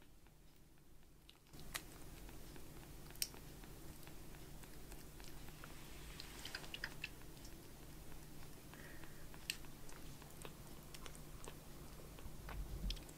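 Newborn kitten suckling milk from a nursing bottle, making soft wet sucking and smacking clicks at an uneven pace.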